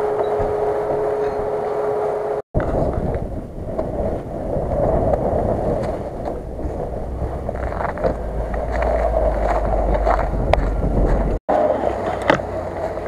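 Engines of off-road 4x4 SUVs running as they drive through snow and an icy river crossing, with a steady whine in the first couple of seconds. The sound drops out briefly twice where clips are cut together.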